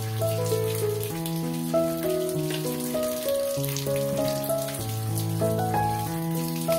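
Background music: a gentle melody of held notes over a slow-moving bass line, with a light pattering noise like rain laid under it.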